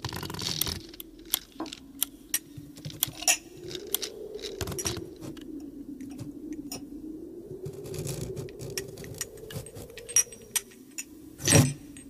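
Small metal parts clinking, clicking and jangling over a low hum that slowly rises and falls in pitch, with one louder metallic clatter near the end.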